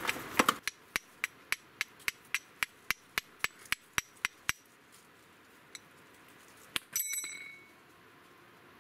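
Steel fire striker struck against flint in a quick steady run, about three to four sharp ringing clinks a second, then a pause and one louder ringing strike near the end: throwing sparks onto char cloth to catch an ember.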